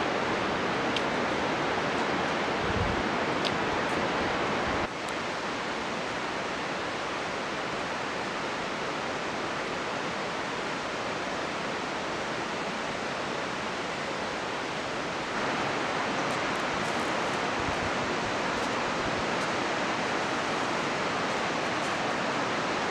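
Steady rushing of running water, an even noise across most pitches. It drops slightly in level about five seconds in and comes back up about fifteen seconds in.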